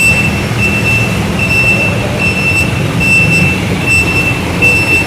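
Vehicle reversing alarm beeping steadily, about once a second, over a low engine rumble.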